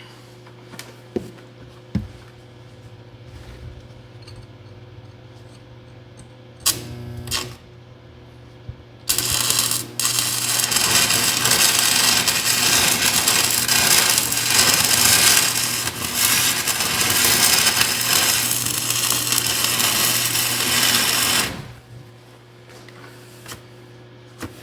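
Stick-welding arc running a 6010 root pass: a brief arc strike about seven seconds in, then a loud, steady crackle from about nine seconds in that stops abruptly about twenty-one seconds in, over a steady low hum. The root is keyholing, the arc widening the gap faster than it can be filled.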